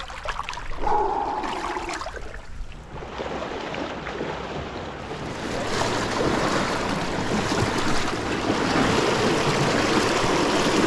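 Shallow current rushing and splashing around the hull of a metal jon boat as it is pushed and dragged through the water by hand. The rush of water is fainter at first and grows louder about halfway through.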